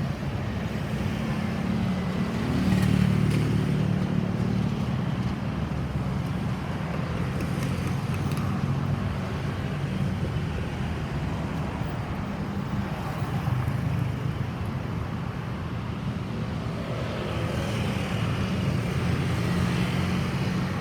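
Road traffic: vehicle engines running with a steady low hum, swelling a little a few seconds in and again near the end.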